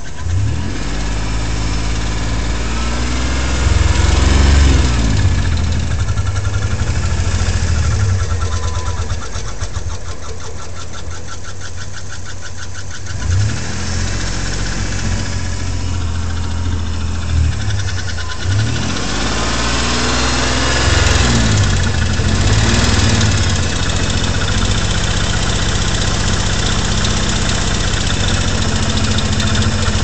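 Car engine idling and being revved up and back down several times, making an abnormal noise. Through the middle there is a fast, even ticking.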